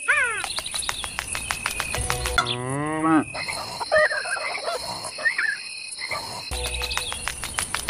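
Night ambience of crickets chirping and frogs croaking, laid on as a sound effect, with a single cow moo about two and a half seconds in.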